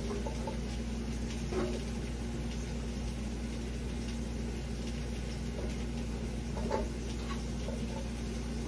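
Steady low kitchen hum with a few faint light knocks and clicks, about a second and a half in and again near seven seconds.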